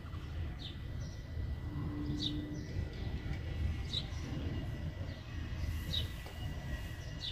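A bird chirping: one short, high, falling note repeated about every one and a half to two seconds, over a steady low rumble.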